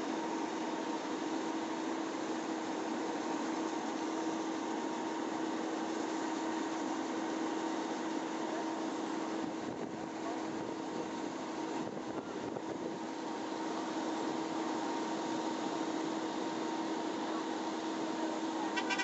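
Fire pumper and portable water pump engines running steadily with a constant hum, pumping water. A brief click comes near the end.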